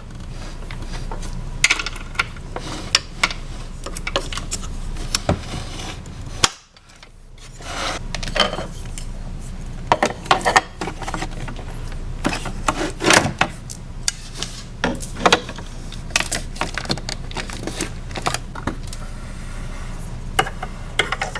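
Hard plastic toy playset pieces being handled: repeated clicks, taps and light knocks of plastic parts, with a brief break about six and a half seconds in.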